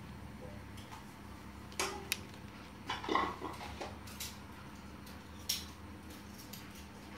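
Hard plastic toy tractor loader handled and set down on a hard floor: a few light clicks and clatters, the loudest about three seconds in, over a faint steady hum.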